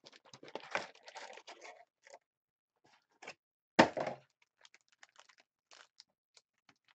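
A 2013-14 Panini Contenders hockey card box and its foil card packs being handled and opened: crinkling and tearing over the first couple of seconds, a single sharp snap about four seconds in, then light scattered rustles and clicks.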